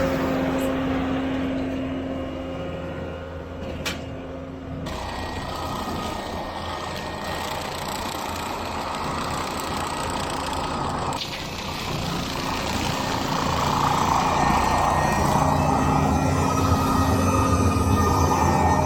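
Skid steer loader engine running steadily, driving a hydraulic brush cutter attachment while mowing. The sound changes abruptly about five seconds in and again about eleven seconds in.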